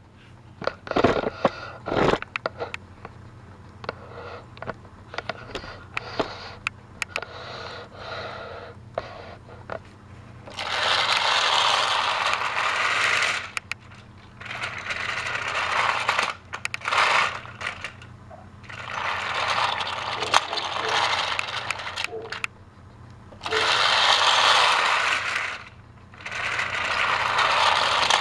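A battery-powered Trackmaster Thomas toy train and its plastic trucks clattering over plastic track, passing close again and again. Each pass is two to three seconds of rattling, and there are several passes in a row. A few sharp clicks come in the first couple of seconds.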